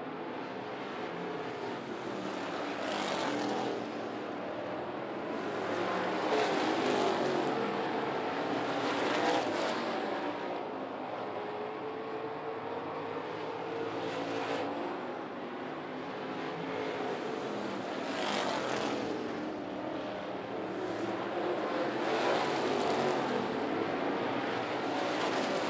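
Dirt late model race cars running at racing speed around a dirt oval, their V8 engines swelling and fading every three to four seconds as cars pass.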